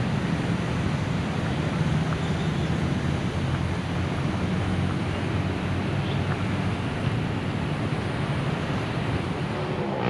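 Steady low rumble of road traffic mixed with wind noise on the microphone.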